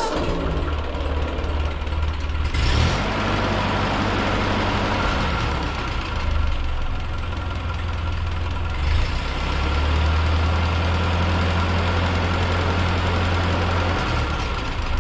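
1944 Ford 2N tractor's four-cylinder flathead engine starting up and running on its freshly rebuilt carburetor, the engine speed changing about three seconds in and again near nine seconds. It runs steadily.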